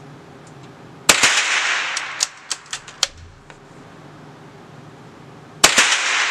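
Two unsuppressed shots from an Anschütz 1416 bolt-action .22 LR rifle, about four and a half seconds apart, each ringing on in the echo of an indoor shooting range. A few short sharp clicks fall between them.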